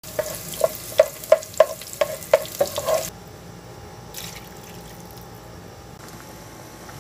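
Diced onions sizzling in oil in a nonstick pan while a spatula stirs them, knocking against the pan eight or nine times in the first three seconds. The sound then drops to a faint steady hiss, with a short splash of water being poured into the pot about four seconds in.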